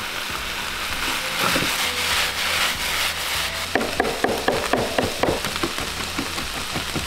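Beef mince sizzling in a frying pan as chopped coriander goes in, then a chef's knife chopping coriander on a wooden chopping board in a steady run of quick strokes from about four seconds in.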